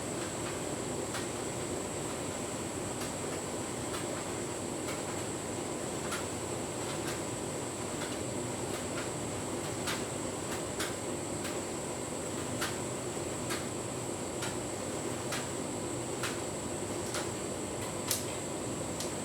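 Tumble dryer running on a full load of bedding: a steady hum with a high whine and a light tick about once a second.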